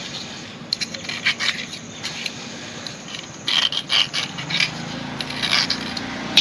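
Metal motorcycle front-fork parts being handled: irregular metallic clinks and scraping, with a cluster of sharper clinks in the middle and again near the end.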